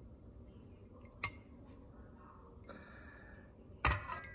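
A metal ladle clinking against the dishes as flan custard is ladled into ceramic ramekins. There is a light clink about a second in and a louder clatter near the end that rings on briefly.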